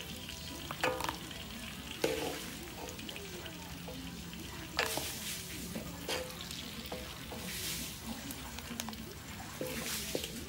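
Chopped rice-field eel frying in hot oil in a wok, a steady sizzle, with a metal spatula stirring and knocking against the pan now and then.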